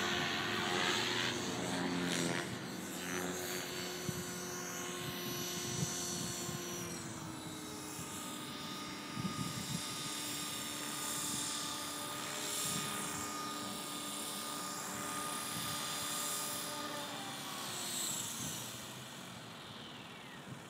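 Align T-Rex 500 electric RC helicopter's motor and rotor whine. The pitch sweeps in the first few seconds and then holds steady. It falls from about 17 seconds in and the sound fades as the rotor spools down after landing.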